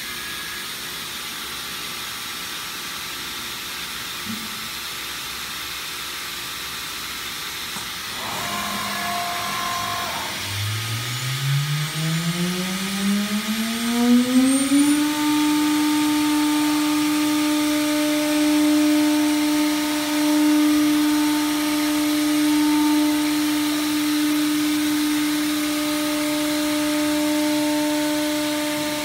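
Steady machine hiss, then the 16 hp Colombo spindle of a MultiCam 5000 Series CNC router spins up about ten seconds in. Its whine rises over about four seconds to a steady pitch at its 18,000 rpm cutting speed and holds there.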